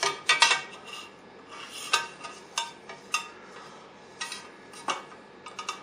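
Gantry plate with plastic V-wheels knocking and clicking against an aluminium V-slot rail as it is set onto the rail and moved along it: about eight separate light knocks, with a faint rubbing between them.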